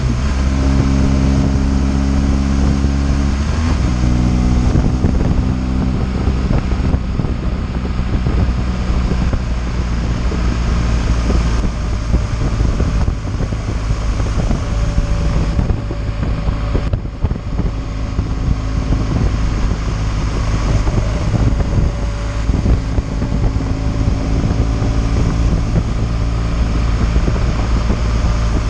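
BMW R 1200 GS boxer-twin engine running under way on the road, its note shifting about three to four seconds in, with steady wind noise on the microphone.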